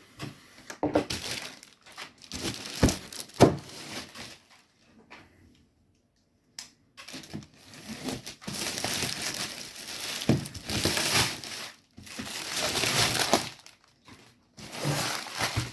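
Parcel packaging being torn open and crumpled by hand, in irregular rustling stretches, with a few sharp knocks in the first few seconds.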